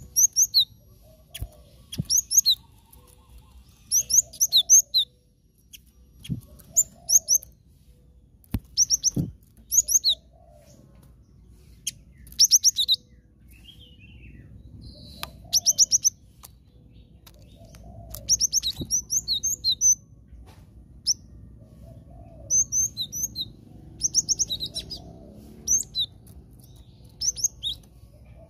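Cinereous tit (glatik batu) singing in short bursts of two to four sharp, high chirps, repeated every second or two. A few low knocks fall between the phrases.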